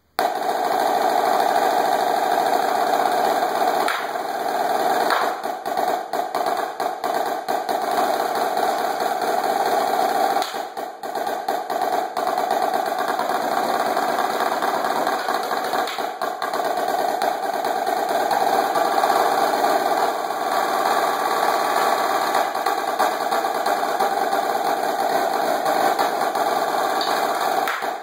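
Marching snare drum played with sticks in fast, dense rolls and rudiment passages, nearly continuous, with a brief dip about ten and a half seconds in.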